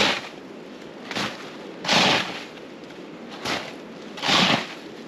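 Plastic snow shovel scraping and scooping packed snow: three strong strokes about two seconds apart, with a lighter scrape between each.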